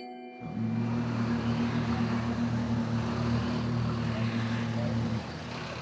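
City street traffic noise with a steady low engine rumble from a heavy vehicle, which drops away sharply near the end, leaving quieter traffic hiss.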